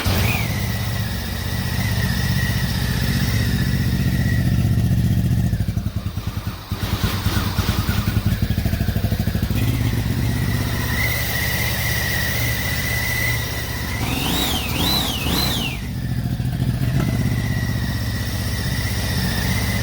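Mini jet boat's inboard engine running out of the water on a freshly built exhaust with no cooling water in it yet, super loud. About three quarters of the way through, the throttle is blipped three times, the pitch rising and falling with each.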